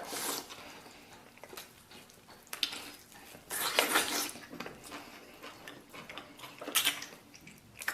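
Eating braised beef and rice from a bowl: a utensil scraping and clinking against the bowl, with chewing, in a few short bursts.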